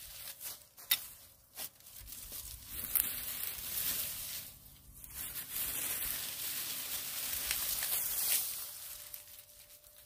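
Dry dead grass and weed stems rustling and crackling as they are pulled up and handled by hand, with a few sharp snaps about a second in.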